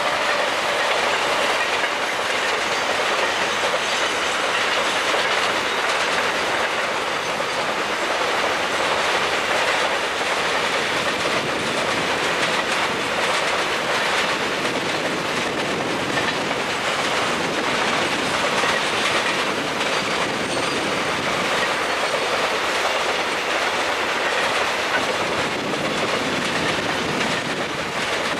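A freight train's loaded container wagons rolling past, a steady loud noise of steel wheels on rail with a rhythmic clatter running through it.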